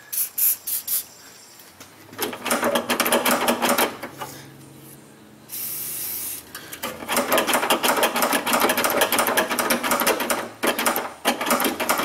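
An aerosol can of Crown T-40 lubricant sprayed into a door lock mechanism, first in several short bursts and then as a brief hiss. For much of the rest there is a fast, dense rattling clatter of the metal latch linkage being worked by hand.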